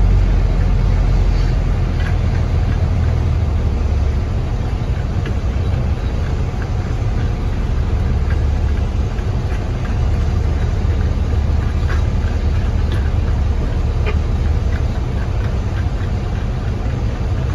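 Diesel engine of a 1997 Volvo silage truck running at low revs, a steady low rumble heard from inside the cab.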